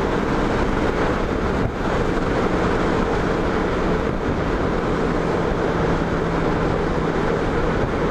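Touring motorcycle cruising at road speed: a steady engine drone under heavy wind rush across the microphone.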